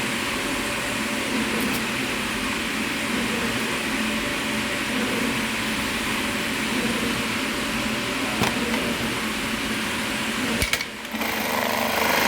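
Juki LK-1920 computer-controlled industrial tacking machine sewing a square Velcro pattern, running steadily. Near the end it drops off briefly, then comes back louder.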